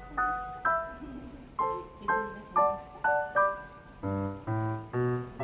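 Background music: a light piano melody of single struck notes, each fading after it sounds. Lower notes join in about four seconds in.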